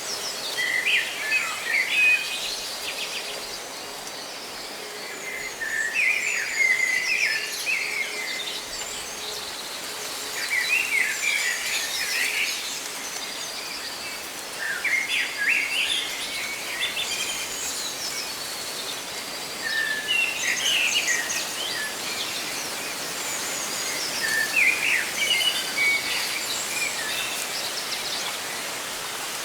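Songbird singing a short chirping phrase about every five seconds, six times, over a steady hiss of rustling leaves.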